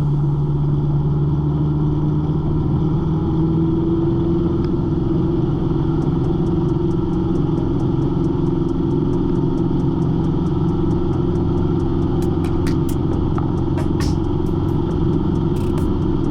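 Cessna 150's four-cylinder piston engine running up to full power for takeoff, its pitch rising over the first few seconds and then holding steady.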